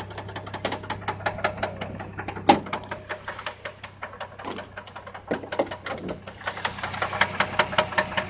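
2002 Chevrolet TrailBlazer's 4.2-litre inline-six idling with a rapid, even knock from the front of the engine, with one sharp louder click about two and a half seconds in. The knock gets louder near the end. It appeared after an oil change, with little oil showing on the dipstick, and the owner wonders if it is a rod.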